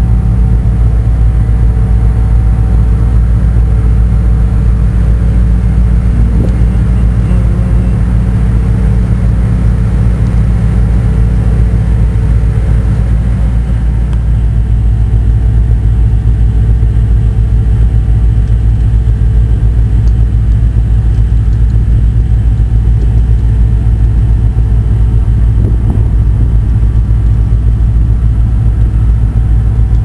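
A car ferry's diesel engines running steadily, heard on the open vehicle deck: a loud, even low rumble with a fast throb.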